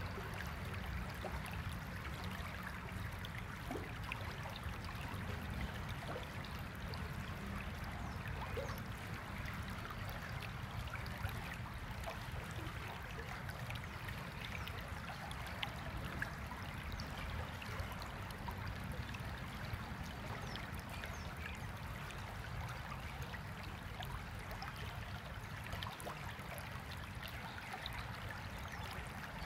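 Stream water running steadily, with a low rumble underneath.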